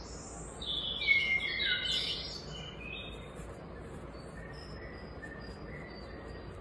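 Small birds chirping: a quick flurry of high calls about a second in, with one falling note among them, then sparser, fainter chirps.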